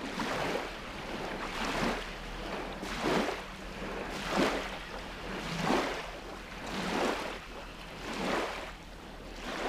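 Small waves lapping and washing onto a sandy river bank, in regular swells a little over a second apart.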